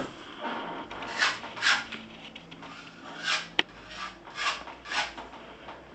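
Filler knife scraping two-part epoxy filler over a wall around newly set wall plugs, in several short strokes, with one sharp click partway through.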